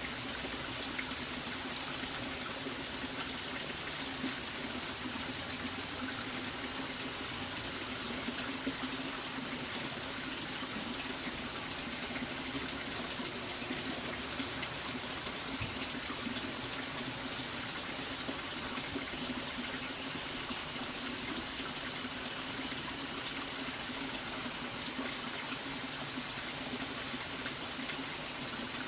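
Steady rush of running water, with a low hum underneath.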